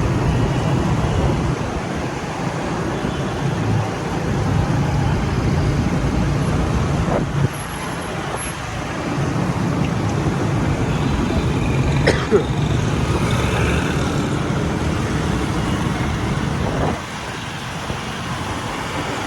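A vehicle engine running steadily under road and wind noise while on the move, with a brief sharp knock about twelve seconds in.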